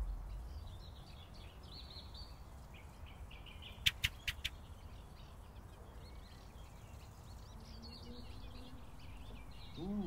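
Quiet ambience of small birds chirping now and then, with three or four quick sharp clicks about four seconds in.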